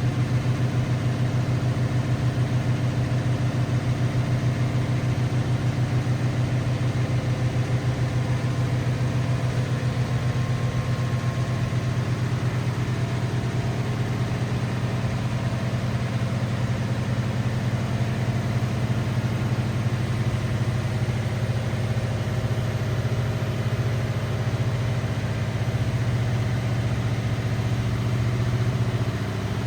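LG WT7600HVA top-load washing machine running, its direct-drive motor giving a steady low hum with a fast, even pulse.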